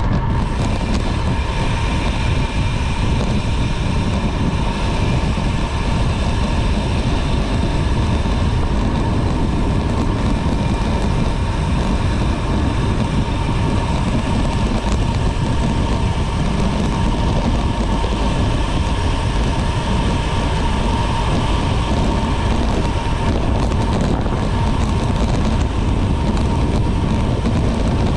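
Steady rush of wind on the microphone and tyre noise from a road bicycle rolling along, with a thin steady whine running through it.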